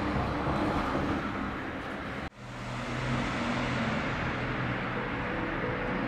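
Steady outdoor street ambience: an even rushing background noise with a faint low hum. It cuts off abruptly about two seconds in and resumes at much the same level.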